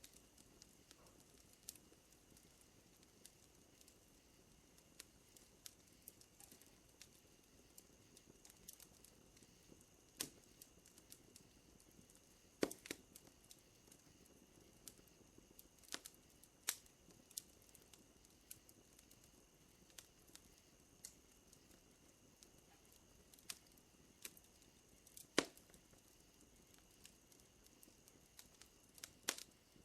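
Wood fire crackling softly, with scattered small pops and a handful of louder snaps. A steady high chirring of night insects runs underneath.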